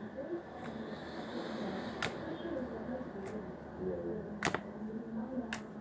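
Homemade sticky slime being stretched and squeezed by hand, giving sharp clicking pops about once a second, five in all.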